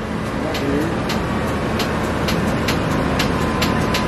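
Car engine idling steadily just after starting, with a regular light clicking a little over twice a second over the rumble.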